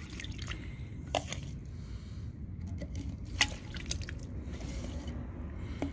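Water squishing and splashing as a half-inch schedule 80 PVC riser with electrical tape on its end is pushed down into a water-filled 1-inch pipe, displacing the water out of the pipe. A few sharp clicks from the pipe being handled.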